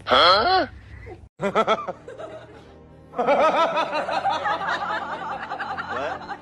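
Snickering laughter: a fast, even run of short 'heh' pulses from about three seconds in, after two shorter high bursts near the start. It is a comic laugh laid over a cat pulling a laughing face, not a cat's own call.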